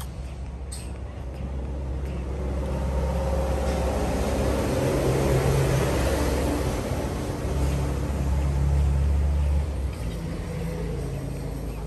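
A motor vehicle's engine running, growing louder through the middle and dropping back about ten seconds in.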